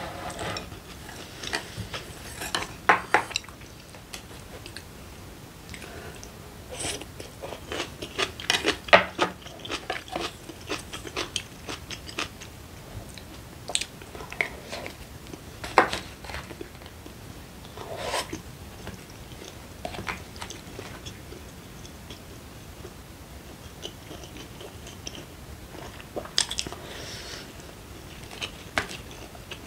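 Close-up eating sounds: chewing mouthfuls of rice, with a wooden spoon knocking and scraping against a ceramic rice bowl in scattered clusters of clicks.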